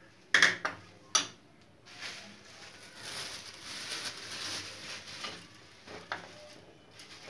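A spoon and small ceramic dishes clinking a few times as spice powder is tipped into a bowl of rice flour, followed by a soft steady hiss for a few seconds and two fainter clicks near the end.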